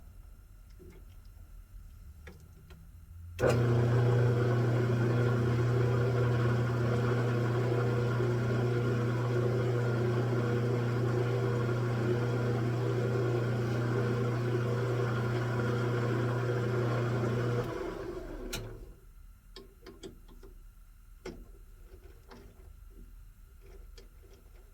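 Metal lathe switched on: the spindle motor starts suddenly and runs steadily with a strong electric hum for about fourteen seconds, then is switched off. A few light clicks and taps follow.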